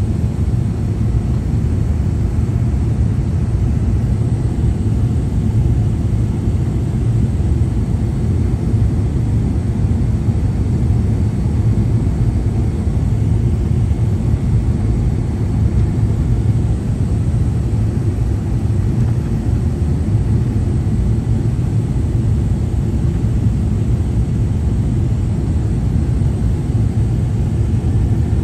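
Airliner cabin noise during the descent to land: a steady low rumble of the engines and rushing air, heard from inside the passenger cabin.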